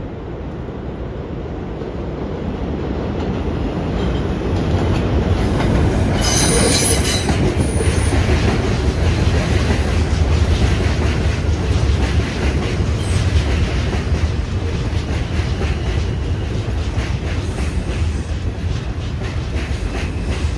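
New York City subway train coming closer and running past, its rumble growing over the first few seconds and then holding steady. The wheels squeal sharply and briefly about six seconds in, and after that the wheels click over the rail joints.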